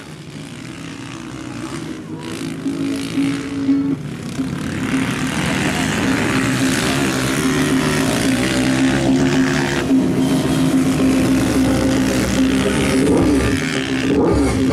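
Dirt-bike engines racing around the track, growing louder over the first few seconds as the bikes come closer, then staying loud.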